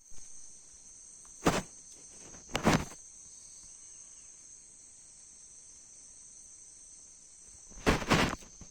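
A steady, high insect drone, like crickets or cicadas, with three short loud scuffs or knocks, the last a double one near the end.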